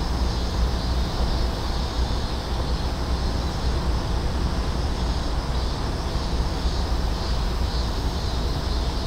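Steady wind buffeting the microphone, a continuous low rumble under an even outdoor hiss.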